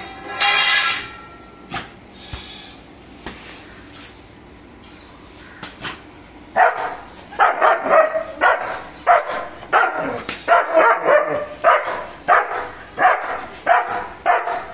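A metallic clatter and ring as a German shepherd handles its steel feeding plate, then a lull. From about six and a half seconds in, the dog barks in a rapid, steady run of about two barks a second.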